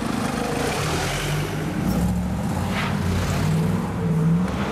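Mercedes-Benz SLR McLaren's supercharged V8 running at low revs as the car pulls away, with its engine note rising briefly near the end.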